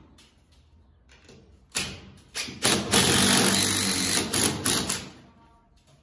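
Cordless impact driver driving a screw through an MDF cabinet hanging rail into the wall. A few short bursts come about two seconds in, then about two seconds of steady hammering rattle, ending in a few quick pulses.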